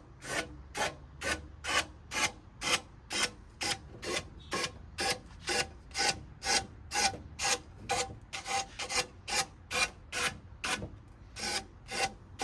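320-grit sandpaper on a wooden block rubbed by hand across the trailing edge of a hydrofoil wing, in even back-and-forth strokes at a little over two a second.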